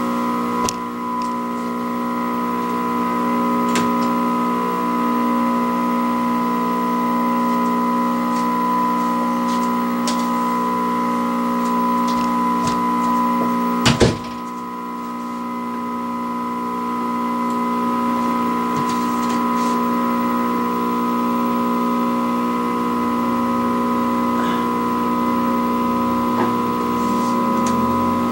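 Steady hum and buzz from the speaker of a 1960s Canadian Marconi portable vacuum-tube TV, several pitches held together with a clear tone near the top, with one sharp knock about halfway through.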